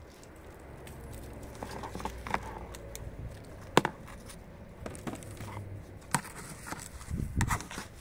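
Hands digging through loose potting soil and pulling potato plants, giving a rustling, crackling sound. Several sharp knocks break in, the loudest about four seconds in.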